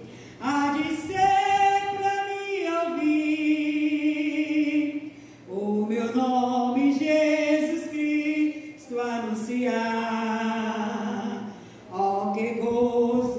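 A woman singing a Portuguese gospel hymn unaccompanied, with long held notes and vibrato, in three phrases with short breaths between them.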